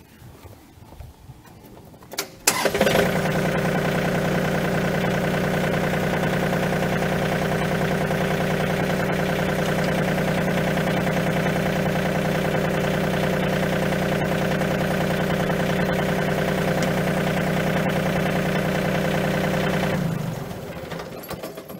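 A John Deere 2032R compact tractor's three-cylinder diesel engine starting with a sharp catch, idling steadily at a constant pitch, then shutting off near the end.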